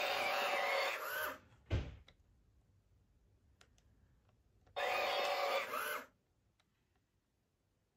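Small electric drive motors of a remote-controlled U-Command Wall-E toy robot whirring, stopping about a second in, then a single thump, and a second whirring burst of about a second past the middle.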